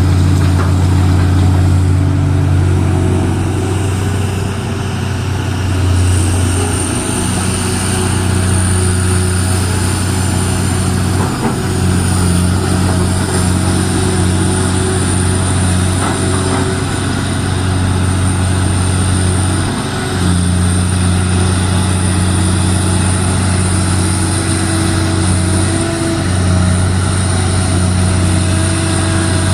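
Heavy diesel engine of mining earth-moving machinery running steadily under load, with a thin high whine joining about six seconds in.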